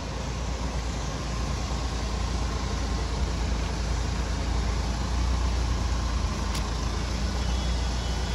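Steady road and tyre noise with a deep rumble from a Mahindra XUV700 on the move, heard from inside the cabin. A brief click sounds about six and a half seconds in.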